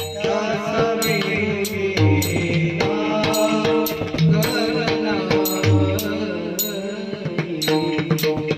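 Marathi devotional bhajan: singing over held instrumental notes, with pakhawaj drum strokes and small hand cymbals (taal) struck about twice a second.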